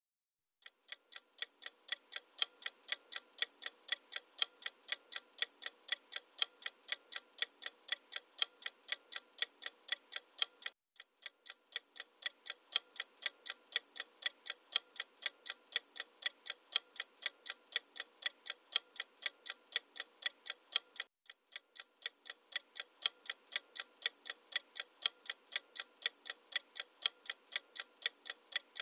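Clock-ticking countdown timer sound effect: a steady tick about three times a second, breaking off briefly twice.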